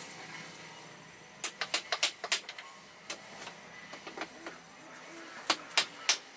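A series of sharp knocks: a quick cluster of about five about a second and a half in, a few scattered ones, then a steady run of about three a second near the end.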